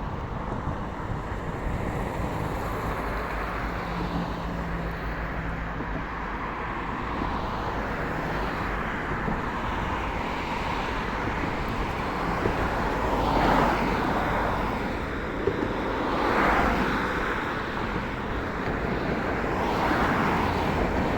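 Road traffic noise: a steady rush of vehicles, with passing cars swelling and fading a few times in the second half.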